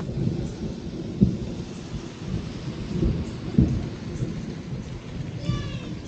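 Rain falling under a low, uneven rumble, with two sharper thuds, one about a second in and one about halfway through.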